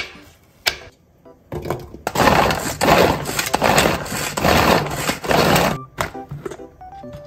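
A couple of knife chops on a wooden board, then a manual food chopper working carrot pieces: about half a dozen loud bursts of its blades spinning through the carrot inside the plastic bowl, each about two-thirds of a second apart, stopping a little before the end.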